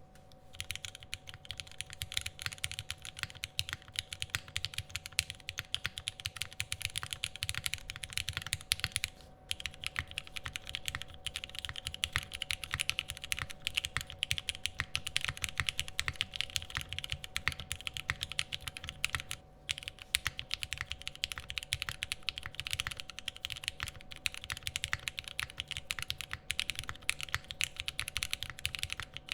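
Continuous fast typing on a Sangeo 60 gasket-mount mechanical keyboard with lubed and filmed Cherry Hyperglide MX Black linear switches, a dense run of keystroke clacks. Typing stops briefly twice, about nine seconds in and again about nineteen seconds in.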